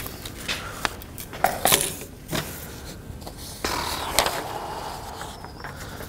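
Sheets of paper being handled, rustled and slid across a desk, with scattered knocks and scuffs in the first couple of seconds.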